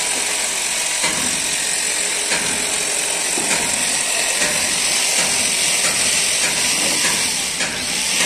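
Truck body workshop noise: a steady hiss with sharp light taps or knocks about once a second.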